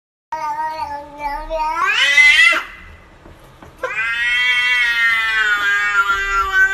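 Domestic cat yowling at another cat in a standoff. One drawn-out wail rises in pitch over about two seconds, then after a short pause comes a longer wail of about three seconds that sinks in pitch at the end.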